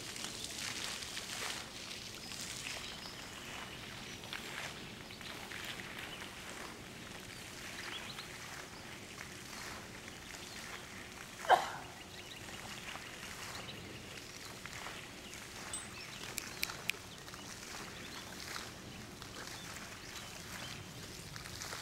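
Quiet outdoor ambience during a flag raising, with one short, loud sound about halfway through and a few light clicks a few seconds later.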